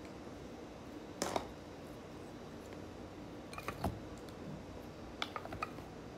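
Cooked abalone being handled with the fingers: a few short, soft clicks and wet taps in three small clusters, about a second in, near the middle and near the end, over a low steady room hum.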